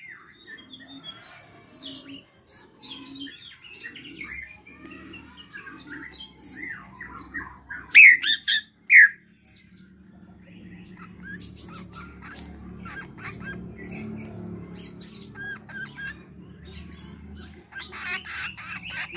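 Caged drongo (srigunting krantil) singing a busy, varied song of short chirps, whistles and mimicked calls, its loudest notes a little under halfway. A low steady rumble sits in the background from about halfway on.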